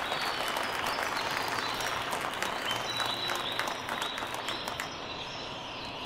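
Stadium crowd applauding, the clapping slowly dying away to scattered claps.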